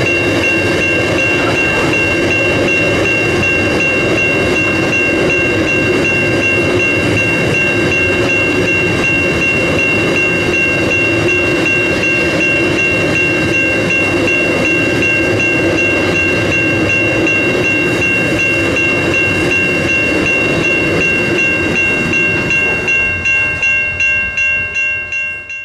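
Loaded grain hopper wagons rolling past on the rails, with a level crossing bell ringing over them. Near the end the last wagons clear and the bell rings on alone, about twice a second, until the sound cuts off.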